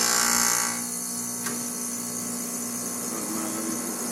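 R-410A refrigerant hissing out of a loosened hose fitting as the line is purged of air, loud for about the first second and then settling to a steadier, quieter hiss.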